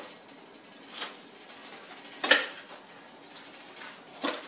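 Three separate knocks and clatters of kitchenware as pieces of freshly baked flatbread are dropped into a food processor bowl. The loudest comes about two seconds in.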